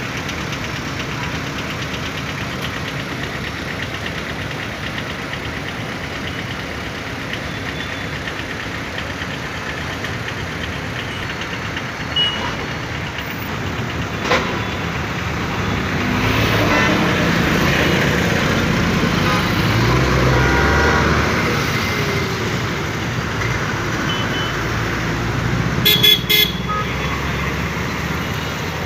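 Road traffic: a steady hum of passing cars and motorbikes. A heavy lorry's engine swells louder as it goes by about halfway through. Two short horn toots sound near the end.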